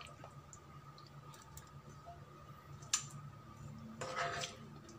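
A serving spoon clicks sharply against a ceramic bowl about three seconds in as curry is spooned into it, with fainter clicks around it. A steady low hum runs underneath, and a short pitched sound comes about four seconds in.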